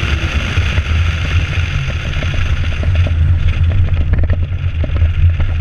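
Open-top sports car's engine running with a steady low drone and wind rushing over the outside microphone. About halfway through the wind noise fades as the car slows at the end of its autocross run, leaving the engine drone and scattered small clicks and ticks.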